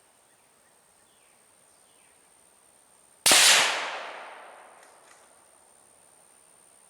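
A single shot from a 7.62x39 Ruger American Ranch bolt-action rifle fitted with a muzzle brake, about three seconds in; the report echoes away over about a second and a half.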